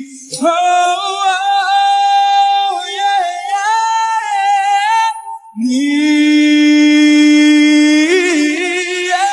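Singing from a love song: a voice holds a long high note with vibrato for about five seconds, then after a brief break holds a lower long note.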